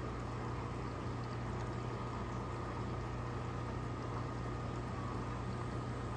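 Reef aquarium pumps and water circulation: a steady low hum under a constant watery hiss.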